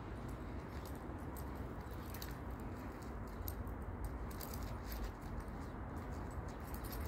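Light metallic jingling and scattered faint clicks from two playing dogs, over a steady low background rumble.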